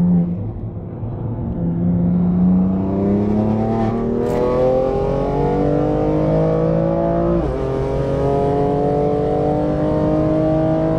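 Car engine under hard acceleration, its note climbing steadily in pitch. About seven and a half seconds in the pitch drops sharply at a gear change, then climbs again.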